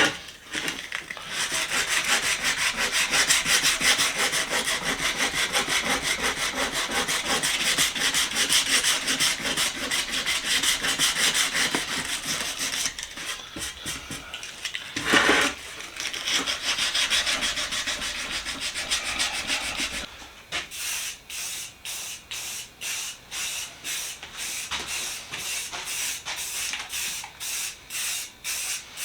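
Sanding of dried Bondo body filler: a fast, steady scraping that briefly gets louder about halfway through. After about twenty seconds it changes to slower, evenly spaced strokes, about two a second.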